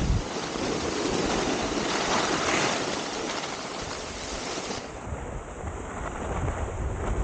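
Wind rushing over the camera microphone, mixed with the hiss of skis sliding and scraping over groomed snow during a downhill run.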